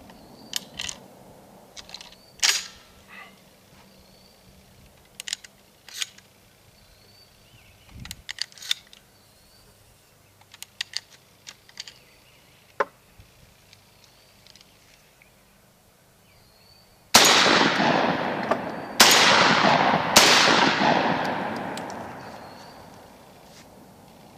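Scattered light clicks and clacks of a Carina AS-12 12-gauge shotgun being handled and loaded. About two-thirds of the way in, it fires three shots in quick succession, about a second apart, each echoing away over a few seconds.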